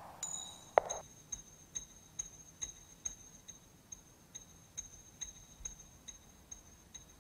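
Faint, even ticking, a little over two ticks a second, over a thin, steady high-pitched tone, after a single sharp clink about a second in.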